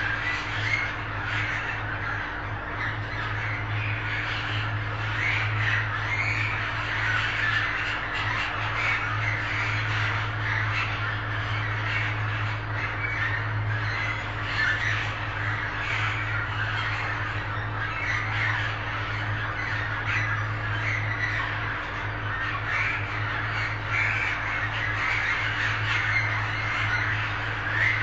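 Budgerigars chattering and squawking without pause, many calls overlapping, over a steady low hum.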